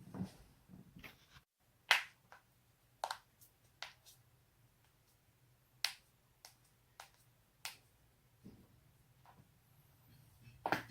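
Spinal joints in the neck and back cracking: about a dozen sharp, separate pops at uneven intervals, the loudest about two seconds in.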